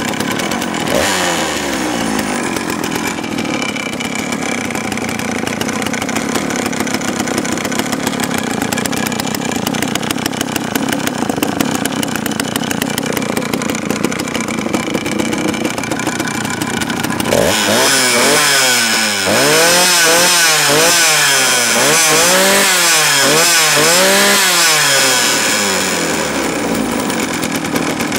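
Vintage Sachs Dolmar 153 100cc two-stroke chainsaw engine running steadily. About two-thirds of the way through it is revved up and down in a quick series of about eight blips, louder, then drops back to steady running near the end.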